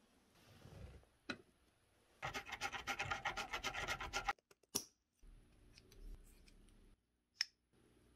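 Rapid scraping strokes on a wooden knife-handle piece, about ten a second for about two seconds, like a file working the wood. A few sharp clicks from the wood being handled come before and after.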